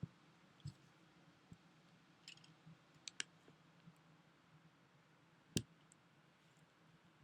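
Near silence with a low steady hum, broken by scattered faint clicks and one sharper click about five and a half seconds in.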